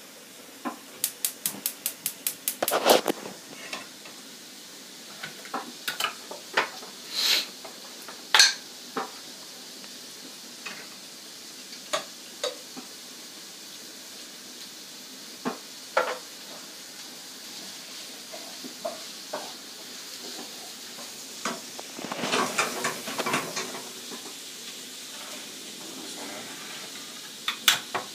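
Kitchen clatter of pots, lids and utensils over a low, steady sizzle of onions frying in a pan, with a quick run of about nine evenly spaced clicks a second or so in. Near the end, a ring-pull can is cracked open.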